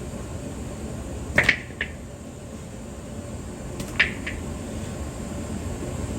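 Sharp, short clinks in two pairs, one about a second and a half in and one about four seconds in, over a steady low background noise.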